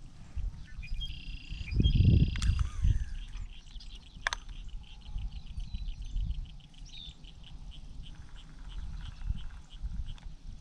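Birds chirping and trilling in the open air beside a pond. About two seconds in comes a low rumble, the loudest sound, and a single sharp click follows a little after four seconds.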